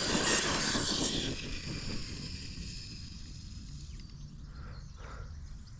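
Electric RC truck running, its motor whine and tyre noise fading out over the first second or two and leaving faint outdoor background.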